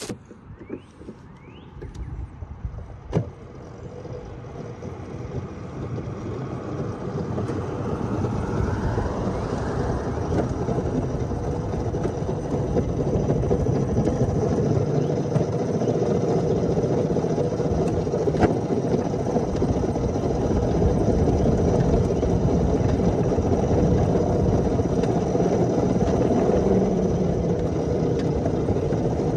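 Miniature ride-on railroad train rolling along the track: a steady rumble of wheels and running gear on the rails, growing louder over the first several seconds as it picks up speed, then holding steady.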